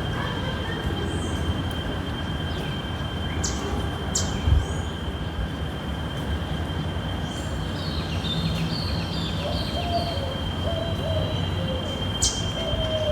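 Steady low rumble with a thin, steady high tone over it, a few sharp clicks, and a thump about four and a half seconds in.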